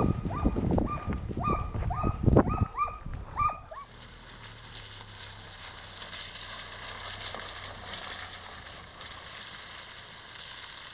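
Hunting dogs barking in quick succession, about two barks a second, as they chase a boar. After about four seconds the barking gives way to a steady rushing hiss of outdoor noise with a faint low hum.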